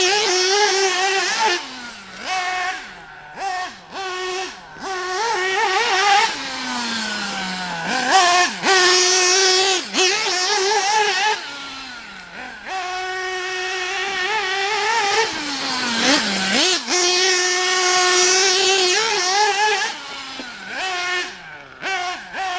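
Alpha Plus Pro Spec .21 nitro RC engine on an OFNA 063 tuned pipe, repeatedly taken up to a high, steady scream on throttle, then dropping away in pitch as the throttle is released, a dozen or so times.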